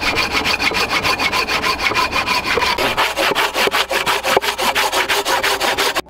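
Hand saw cutting through a mossy log in quick, even strokes, the teeth rasping through the wood. It stops abruptly near the end.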